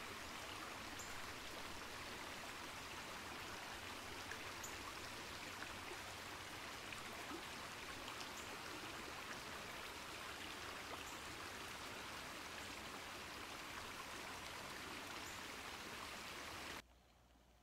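A creek running steadily, an even rush of water. It cuts off abruptly near the end.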